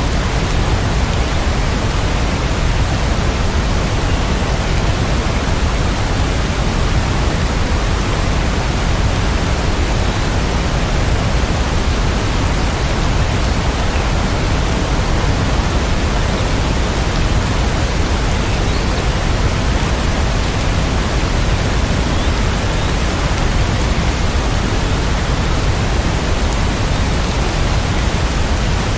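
Steady rain as an even, unbroken hiss, heaviest in the low end, with no single drops or thunderclaps standing out.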